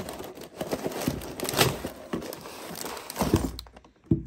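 A LEGO set's cardboard box being opened and its contents handled: a run of scraping and rustling with a few louder strokes, stopping shortly before a couple of knocks near the end.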